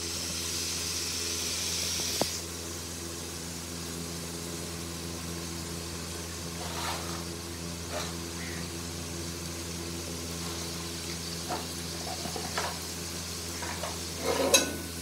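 Onions and green chillies frying in oil in an aluminium pot, sizzling more brightly for the first two seconds and then settling into a softer, steady sizzle. A steady low hum runs underneath, with a few light taps as spices are dropped in.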